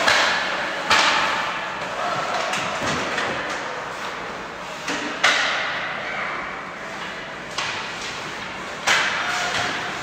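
Ice hockey play in an arena: sharp knocks of puck and sticks against the boards, three loud ones and a few lighter ones, each ringing out in the echoing rink over a steady noisy background.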